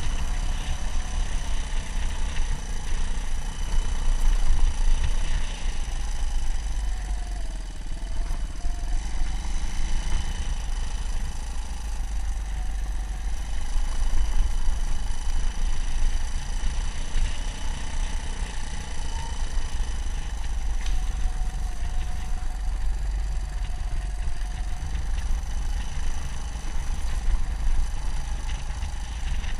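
Suzuki DR200 dual-sport motorcycle's single-cylinder engine running while riding, its pitch rising and falling gently with the throttle, over a strong, steady low rumble.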